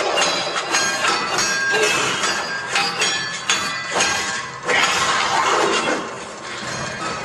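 Film fight sound effects of stick-and-baton combat: a fast run of sharp hits and whacks, with a louder crashing burst about four and a half seconds in.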